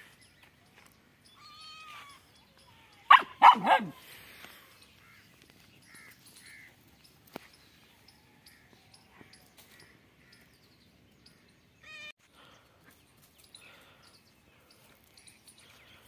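A young dog barks three times in quick succession about three seconds in, squaring off against a cat. Short, fainter animal calls are scattered through the rest.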